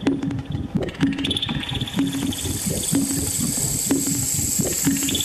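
Kitchen tap turned on about a second and a half in, water running steadily into a steel sink, over a steady beat that repeats about once a second.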